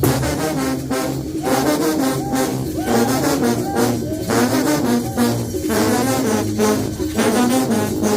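Mexican banda brass band playing a rhythmic tune, with tubas, trombones and trumpets.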